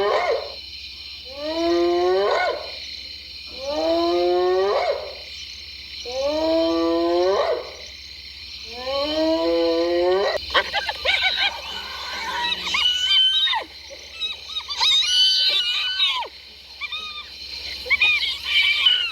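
Spotted hyena calling: a run of long rising whoops about every two and a half seconds, then from about ten seconds in, quick high-pitched choppy giggles, the hyena's laugh.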